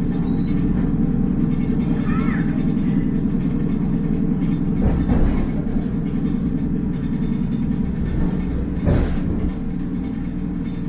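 Steady low hum and rumble inside the passenger car of an old Soviet Riga-built ER2K electric train standing at a station platform, with a brief high squeal about two seconds in.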